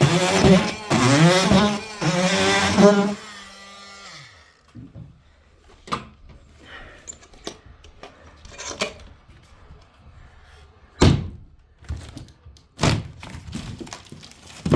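Makita oscillating multi-tool running and cutting into cornice cement, its pitch wavering under load, then released about three seconds in and winding down. After that come quieter scrapes and several sharp knocks from the plaster cornice being worked loose, the loudest about two-thirds of the way through and shortly after.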